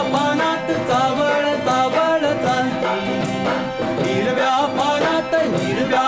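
Music from a Marathi folk-style song: melody instruments over a steady drum rhythm, with no clear sung words.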